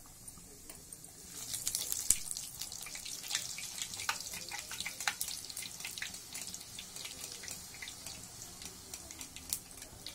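Bhatura deep-frying in hot refined oil in a kadhai, with a dense crackling sizzle that jumps up sharply about a second in and then slowly eases off.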